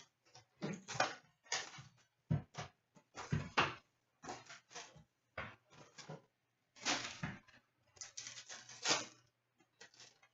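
Retail box of hockey cards and its foil packs being opened: an irregular string of short crinkles and rips of wrapper.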